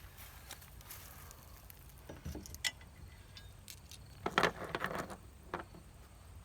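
Small stainless steel bolts clinking and tapping as they are handled, with scattered light metallic clicks and a louder cluster of clinks about four seconds in.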